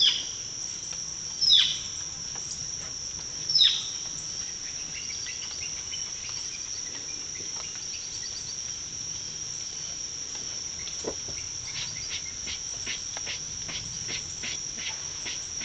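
Steady high-pitched drone of an insect chorus. Over it a bird gives three loud, quick down-slurred calls in the first four seconds, and a run of short ticking chips follows in the second half.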